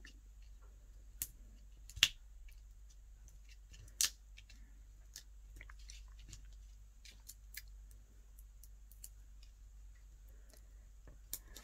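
Faint handling sounds of paper and small foam adhesive pads: soft scattered clicks and rustles as the pads are peeled off and pressed onto strips of cardstock, with sharper ticks about one, two and four seconds in.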